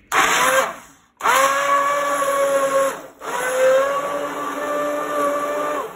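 Hand-held immersion blender puréeing cooked peas, onion and stock into soup, its motor running with a steady whine. It runs in three bursts, stopping briefly about a second in and again about three seconds in, and the pitch rises as each burst starts.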